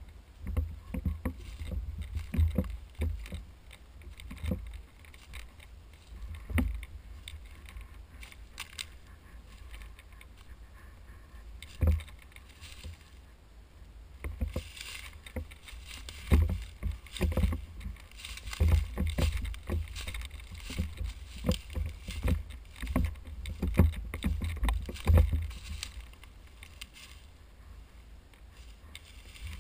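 Footsteps on dry leaf litter and undergrowth, with dull knocks and gear rattling on a body-worn camera as the wearer walks. The steps come irregularly, thickening in the second half.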